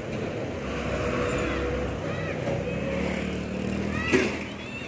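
Road traffic passing close by, with a bus running past and a steady engine hum. A short sharp click-like sound about four seconds in.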